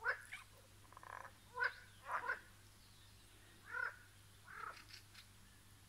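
Frogs croaking from a pond in short, separate calls, about seven of them at irregular intervals over a few seconds.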